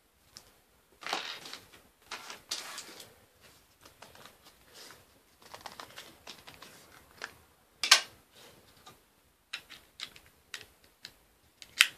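Handling noise from a SIM card pack and a Nokia 100 phone being worked by hand: card and plastic rustling with light clicks and taps, and two sharp clicks, one past the middle and one near the end.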